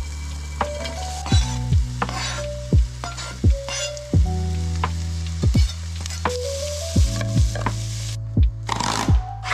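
Background music with a beat of deep kick drum hits that drop in pitch, a steady bass and a simple melody. Under it is the sizzle of fish frying in a pan, which stops shortly before the end.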